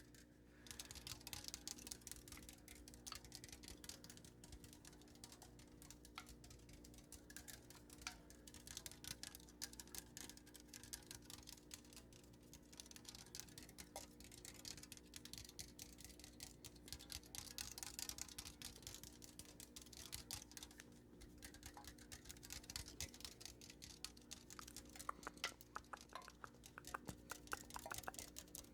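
Faint ASMR trigger sounds close to the microphone: a dense, continuous run of light rapid clicks and crackles, like fingernail tapping and scratching, over a faint steady hum.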